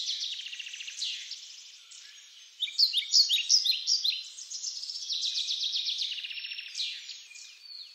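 Birds chirping and trilling in quick, repeated high notes, quieter for a moment before a louder run of calls starts about two and a half seconds in.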